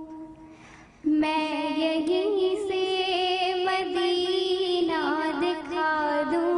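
A girl's solo voice singing a naat, holding long notes with bends and a wavering ornament. It breaks off briefly at the start and comes back in about a second in.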